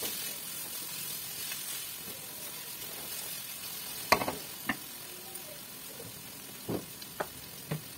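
Bell peppers, carrots and spring onions sizzling in oil in a non-stick wok, stirred with a silicone spatula: a steady hiss. A sharp knock comes about halfway through, followed by a few lighter knocks.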